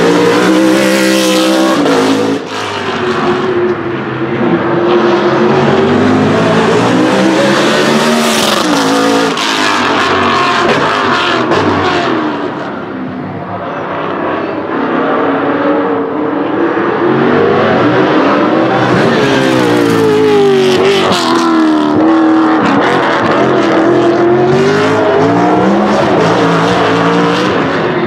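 BMW Z4 GT3's naturally aspirated 4.4-litre V8, derived from the E92 M3, accelerating and backing off again and again, its pitch rising and falling with each burst of throttle and gear change. It drops in loudness for a moment near the middle.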